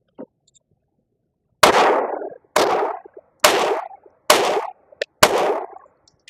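Five shots from a Glock G44 .22 LR pistol firing Blazer 40-grain rounds, about one a second, each trailing off briefly. The pistol cycles every round without a stoppage.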